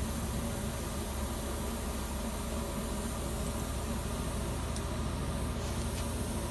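A steady low buzzing hum, with a faint hiss above it and a couple of faint ticks near the end.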